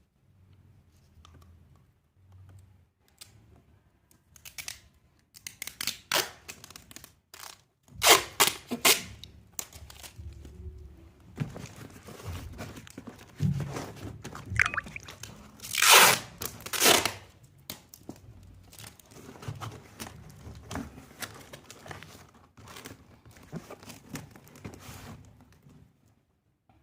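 Hands packing a cardboard carton: cardboard crunching and rustling, with several loud tearing rips, the loudest about eight and sixteen seconds in.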